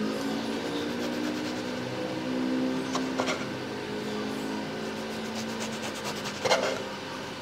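A kitchen knife sawing through soft sesame-seed burger buns on a wooden cutting board, a steady rasping. The blade knocks against the board about three seconds in and again, louder, about six and a half seconds in.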